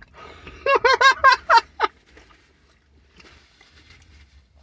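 A man's high-pitched cackling laugh: about six quick, arched "ha" notes packed into just over a second, a little under a second in.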